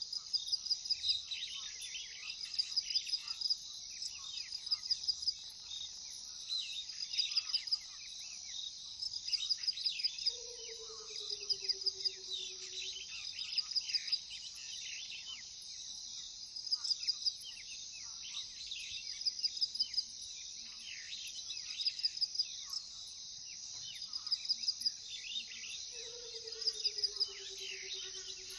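Crickets trilling in short pulsed bursts that repeat about every second and a half over a steady high insect hum, with many small bird chirps and twitters mixed in. Twice, about ten seconds in and near the end, a low drawn-out call slides down in pitch for a couple of seconds.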